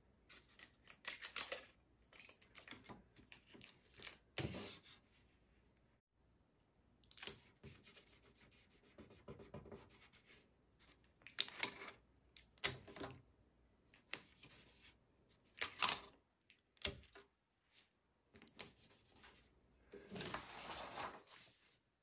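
Irregular clicks and taps of small objects being handled, with a rustle or scrape lasting about a second near the end.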